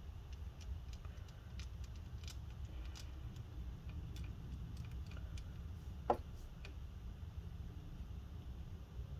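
Scattered small clicks and light taps of a small screwdriver and tiny screws being driven back into a laptop fan assembly, with one sharper click about six seconds in, over a low steady hum.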